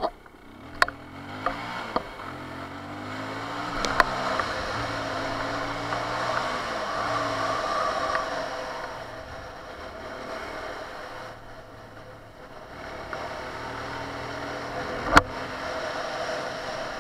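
Benelli 150S single-cylinder engine pulling away and accelerating through the gears, its pitch climbing in steps, easing off midway and picking up again near the end, with wind rush over the microphone. A few sharp knocks come through, the loudest about fifteen seconds in.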